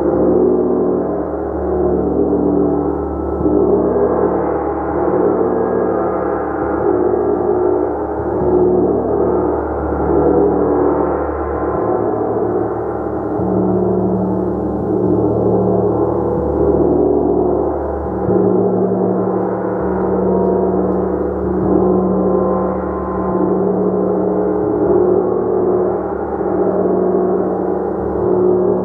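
Gong played continuously: a dense wash of many overlapping sustained tones at a steady level, with no single strike standing out.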